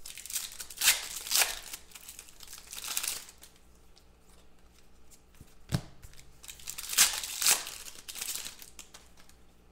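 Foil trading-card pack wrappers crinkling and tearing as packs are handled and opened, with cards rubbing together as they are flipped through by hand. It comes as a series of short rustles, louder around a second in and again about seven seconds in.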